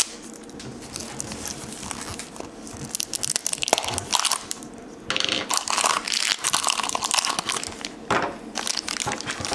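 Plastic toy packaging crinkling and crackling as a Grossery Gang blind-pack trash can is pulled open by hand. The crinkling starts a few seconds in and gets louder about halfway through.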